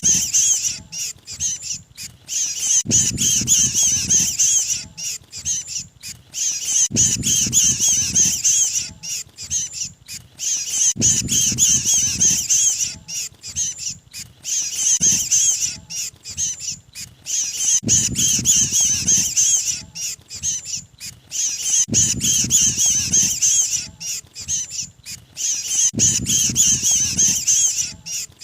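Harsh, rapid, squawking distress calls of a trapped mantenan bird, a bird-trapper's lure recording. The calls run without a break, and about every four seconds a burst of low rustling or flapping noise comes in with them, repeating like a loop.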